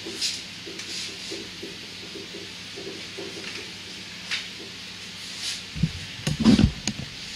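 Faint handling sounds of a fitting being unscrewed by hand from a Hydra-Cell pump's port over a low steady hum, then a few clunks about six seconds in as parts are set down on the metal workbench.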